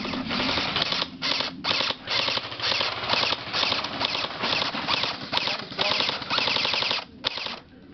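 Airsoft rifle firing on full auto in long rapid bursts, with short pauses about a second in and near the end.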